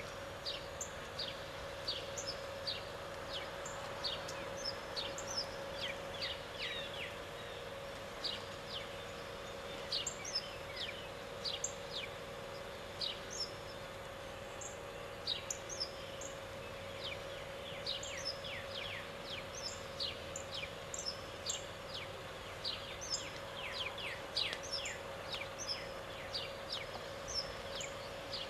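Small birds chirping: many short, quick notes that sweep sharply down in pitch, coming in loose irregular clusters, over a faint steady hum.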